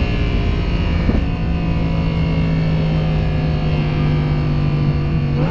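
Lamborghini Huracan LP610-4's V10 engine heard from inside the cabin, running at a steady, even note. The note changes sharply and briefly about a second in and again at the very end.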